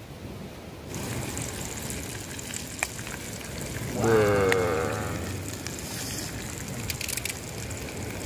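Fish fillets frying in hot oil, a steady sizzle that grows louder about a second in. A short voice sound, the loudest moment, comes about four seconds in.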